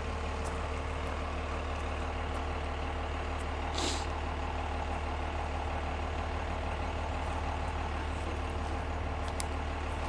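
A vehicle engine idling steadily with an even hum, with a short hiss about four seconds in and a single sharp click near the end.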